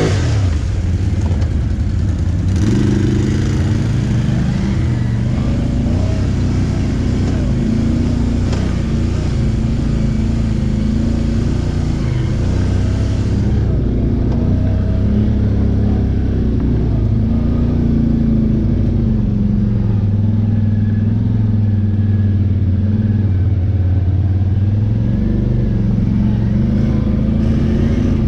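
ATV engine running under way at varying throttle on a dirt trail, its pitch easing up and down with speed, heard from the rider's own quad.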